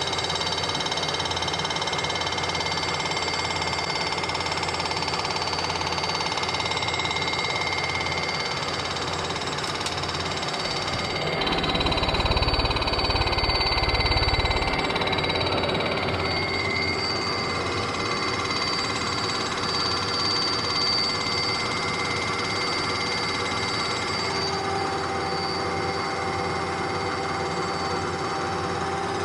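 Bridgeport vertical milling machine running a large fly cutter in a slow, light facing cut across an aluminium Honda GX610 cylinder head, resurfacing the head-gasket sealing surface flat. It makes a steady whine with several high tones. A low rumble rises for a few seconds about twelve seconds in, and the pitch of the tones shifts slightly after it.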